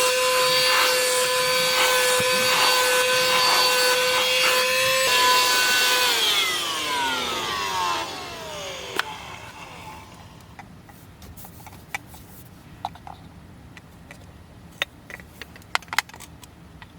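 Cordless handheld vacuum cleaner (XREXS) running with a steady high whine, then switched off about six seconds in, its pitch falling as the motor spins down. After that, a few light clicks and knocks from handling its plastic parts.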